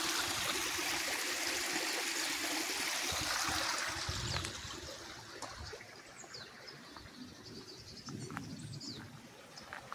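A small woodland stream trickling and splashing over stones. It is loud at first and fades to a softer trickle after about four seconds. A few short bird chirps come through in the second half.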